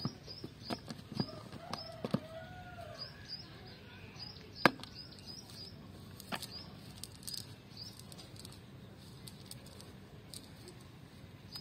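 Scattered sharp slaps and rustles as caught fish are worked out of a cast net on grass, the loudest about five seconds in. A bird chirps over it again and again in short, high, falling notes.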